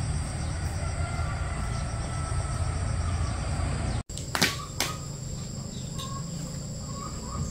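Outdoor ambience: a steady low rumbling noise with insects chirping continuously, broken by a sudden cut about four seconds in, after which the insect chirping goes on over quieter background with a couple of sharp clicks.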